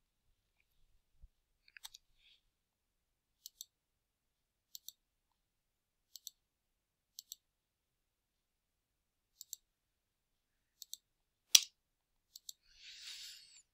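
Computer mouse buttons clicking, mostly in quick pairs every second or two, as lines are drawn in a CAD program. About three quarters of the way through there is one much louder knock.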